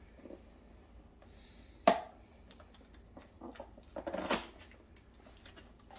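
Small cardboard box being handled and opened by hand: scattered light clicks and taps of the lid and flaps, one sharp snap about two seconds in, and a short rustle a little after four seconds.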